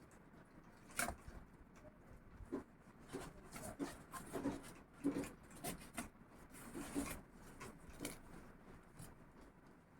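Faint handling of a cardboard courier parcel being opened: scattered rubbing, scraping and light knocks at irregular intervals.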